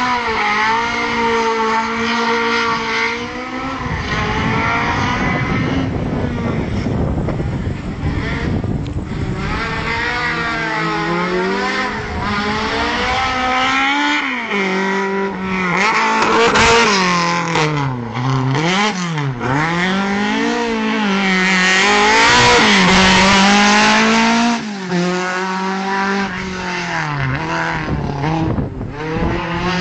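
Race car's engine driven hard on a hill-climb run. The revs climb and fall again and again through gear changes and lifts for corners, with several quick sharp dips and recoveries around the middle.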